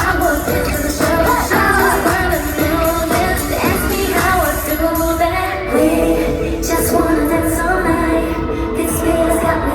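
Pop song performed live through an arena sound system: a group of women singing over a loud backing track with a steady beat.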